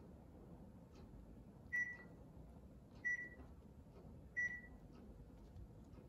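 Three short high beeps about 1.3 seconds apart, each starting with a click, as buttons on a Panasonic room air conditioner's remote are pressed and the unit acknowledges each command. The presses step the air conditioner's mode from cooling to dehumidify.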